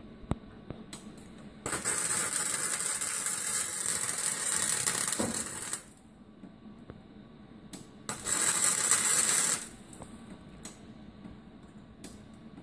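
MIG welder arc crackling in two runs, about four seconds long and then about a second and a half, as a crack in a Model T frame cross member is welded up.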